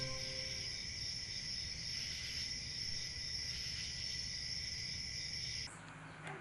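Crickets chirring steadily in a high, even tone, cutting off suddenly near the end.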